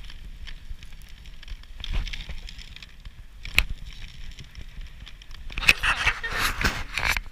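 Dog sled sliding along a snow trail: a steady crackling scrape of the runners and basket over the snow, with scattered knocks, one sharp knock about three and a half seconds in, and a louder rush of scraping near the end.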